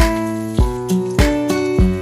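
Background music with a steady beat, about one beat every 0.6 s, under held melodic notes.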